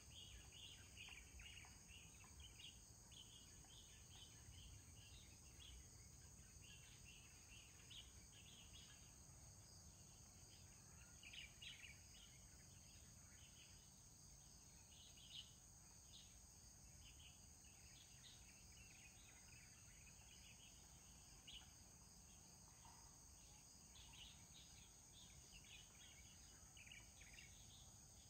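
Near silence: faint outdoor ambience with a steady high insect drone and many short, scattered high chirps, over a low rumble.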